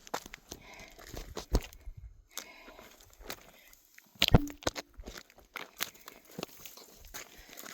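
Footsteps crunching on a gravelly, rocky trail at an irregular pace, with one sharper knock a little past halfway.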